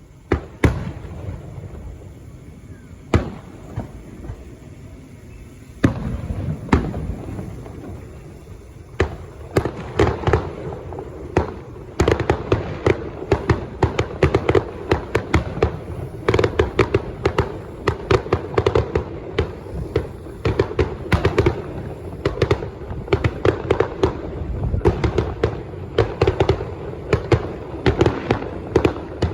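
Fireworks going off: a few separate bangs at first, then from about twelve seconds in a dense, rapid barrage of bursts and crackling reports.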